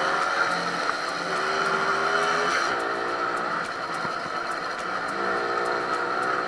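Romet moped's 50 cc two-stroke engine running under way, heard from the rider's seat. The engine note dips a little under three seconds in and picks up again about five seconds in.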